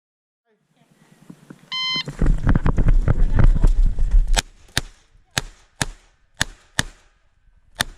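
A shot timer beeps once, followed by a couple of seconds of loud rumbling noise, then a Smith & Wesson 929 9mm revolver firing seven shots, mostly in pairs about half a second apart, the last one after a longer gap near the end.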